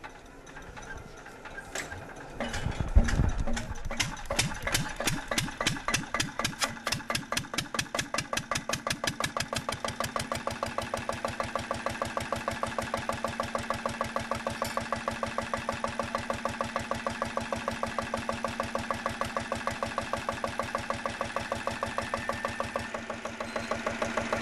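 Red single-cylinder stationary engine with twin flywheels starting: a few loud knocks about two to three seconds in, then its firing beat quickens and settles into a steady fast run.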